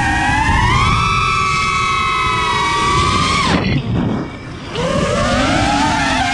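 4S FPV freestyle quadcopter's brushless motors whining, the pitch rising and falling with the throttle over a rushing noise. About three and a half seconds in, the throttle is chopped and the whine sweeps down and drops away. About a second later it is punched back up and the pitch climbs again.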